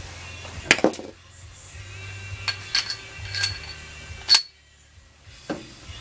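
Metal tools and parts clinking and knocking: a series of sharp separate clinks, the loudest about four seconds in.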